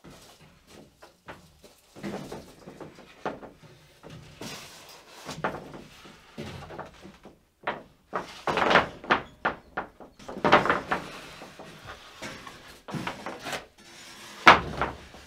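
Lumber boards being slid in and handled, wood scraping and knocking on wood in irregular clusters, with one sharp knock near the end as a board is set down.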